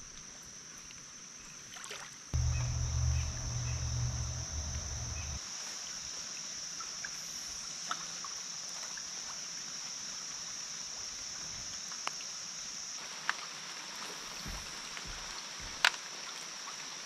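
Kayak paddle dipping and dripping in calm creek water, with a few sharp knocks and clicks, over a steady high drone of insects. A low rumble lasts about three seconds near the start and is the loudest part.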